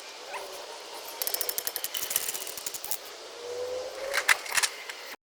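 Ratchet wrench clicking in a rapid run while a 17 mm wheel hub bolt is backed out, then a few sharper metal knocks near the end.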